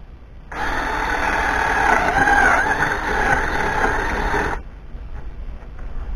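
Cordless drill running under load as it bores a bolt hole down through a wooden board. It starts suddenly about half a second in and stops abruptly after about four seconds.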